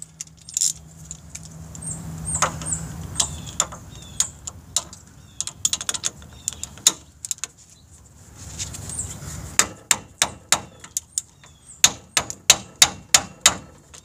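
Ratchet wrench clicking as the front wheel hub's mounting bolts are tightened by hand, short of a torque wrench. Scattered clicks at first, then a quick, regular run of sharp clicks, about three a second, through the last four seconds.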